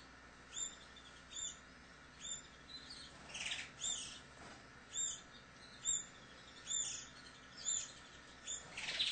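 Young canaries chirping: short, high call notes repeating about once a second, with a louder, harsher call about three and a half seconds in. These are typical of fledglings begging to be fed.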